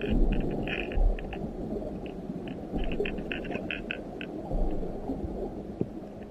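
Steady low underwater water noise with irregular clusters of short, high clicks: the rattle inside a hard-bodied jerkbait lure clicking as it is twitched through the water.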